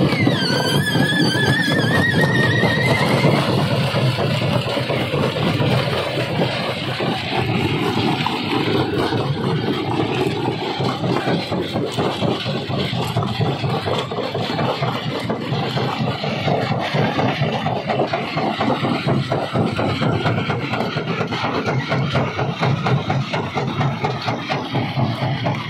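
Rock crushing machinery running, with a continuous dense grinding and rattle of rock. A high wavering squeal sounds over it in the first few seconds.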